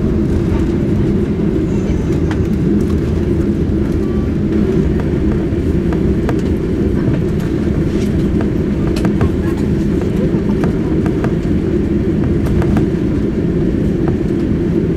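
Boeing 747-8 cabin noise while taxiing: a steady low rumble from the engines at taxi thrust and the wheels rolling over the taxiway, heard inside the cabin, with scattered light clicks and rattles.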